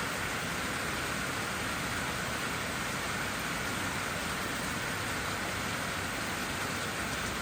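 Steady rain falling, an even hiss that does not change, with no thunder or single drops standing out.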